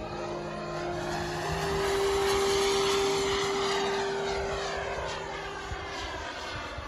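Sebart Avanti S 2.2 m radio-controlled model jet making a pass: its rushing jet noise swells to its loudest about two to three seconds in, then fades as the jet moves away.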